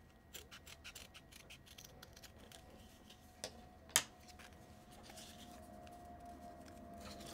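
Small trauma shears snipping through fabric moleskin tape: a quick run of faint crisp cuts over the first three seconds, then a single sharper click about four seconds in as the cut pieces are handled on the wooden desk. A faint drone, from an aircraft overhead, builds slowly through the second half.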